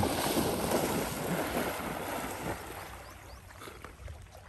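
A Labrador retriever plunging and splashing into lake water, then swimming off; the splashing is loudest at the start and fades over a few seconds.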